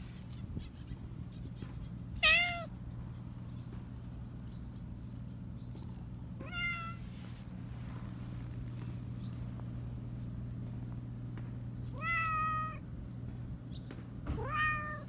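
Black Persian cat meowing four times in a high voice, with pauses between: the first meow, about two seconds in, is the loudest, and the third is held longest. A steady low hum runs underneath.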